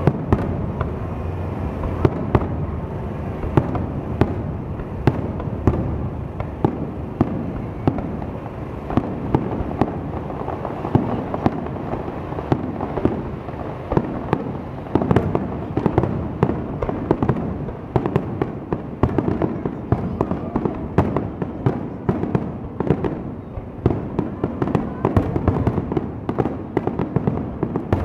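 Aerial fireworks shells bursting in a rapid, continuous barrage of booms and sharp cracks, crowding closer together near the end.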